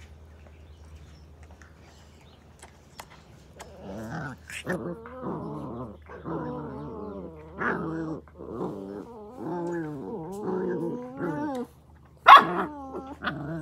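Australian cattle dog (blue heeler) puppies play-growling as they wrestle, a long run of growls starting about four seconds in. Near the end one puppy gives a sharp bark, the loudest sound.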